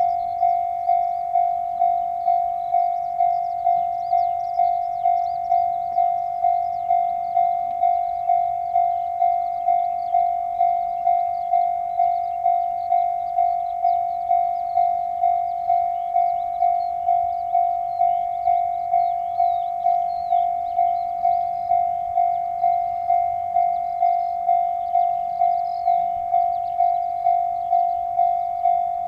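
Japanese electronic railroad-crossing alarm ringing its steady 'kan-kan' bell tone, about one and a half strokes a second, each stroke striking and then fading.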